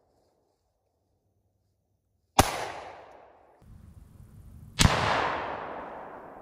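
Two AR-style rifle shots about two and a half seconds apart, each a sharp crack followed by a long echo dying away.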